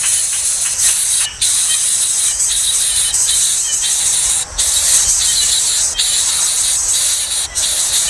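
A loud, steady high-pitched hiss, broken by a few very short dropouts.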